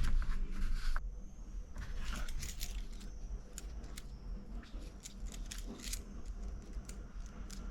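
A keychain with keys and metal tokens being handled, clinking and jangling in irregular light clicks.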